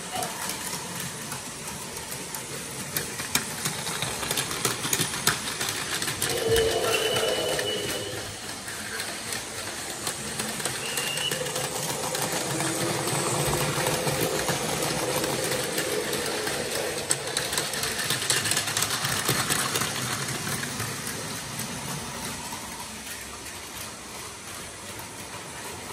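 Plarail Advance battery-powered toy trains running on plastic track: small motors whirring and wheels clicking rapidly. The sound swells in the middle as the trains come close, then fades.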